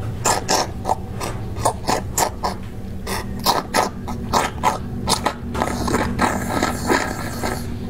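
Slurping through a plastic straw pushed into braised bones, drawing up the juices with air. A quick, irregular run of short sucks gives way to one longer continuous slurp about five and a half seconds in.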